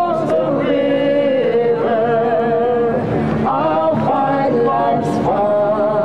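A voice singing unaccompanied, holding long notes with a wavering pitch, with a brief break about halfway through.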